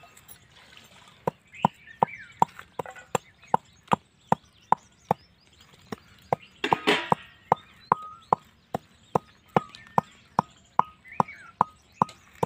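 Pestle pounding in a small mortar: a steady run of sharp knocks, about two and a half a second, starting about a second in. There is a brief rustle about seven seconds in.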